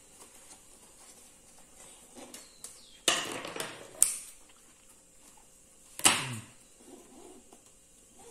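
Rolled paper weaving tubes rustling and scraping against each other as they are threaded by hand through the spokes of a basket frame, with a louder swish about three seconds in, a sharp click about a second later and another swishing knock about six seconds in.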